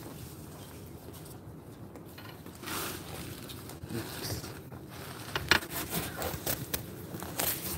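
A metal rod clinking and scraping against a stone paper-burning furnace as it is pushed in to stir the fire, with a few sharp clicks in the last few seconds over a low steady rumble.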